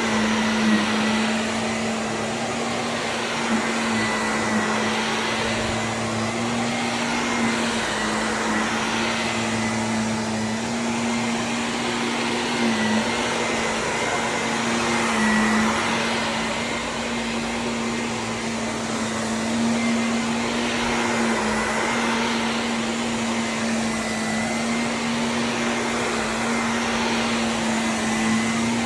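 Vacuum cleaner running steadily: a motor hum under a rush of air, the noise swelling and easing every few seconds as the cleaner works.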